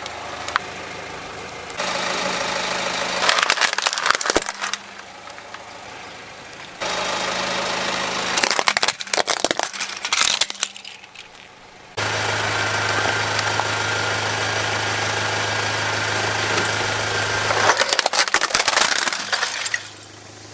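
Plastic toys cracking and snapping as a car's tyre rolls over them, in three separate bouts of crunching, over the steady hum of the car's idling engine.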